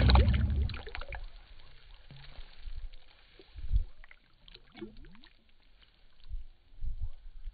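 A bass's splash as it is dropped back into shallow water, slowed down and deepened by slow-motion playback. The splash is loudest in the first half second, followed by quieter water movement and a few low thumps.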